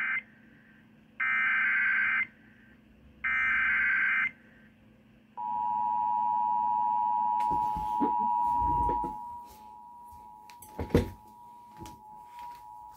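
Emergency Alert System tones on a radio broadcast: three short bursts of screeching SAME data header, then the steady two-tone attention signal starting about five seconds in, dropping in loudness about halfway through. Together they mark the start of an EAS activation for a tornado warning. A few knocks sound while the tone plays.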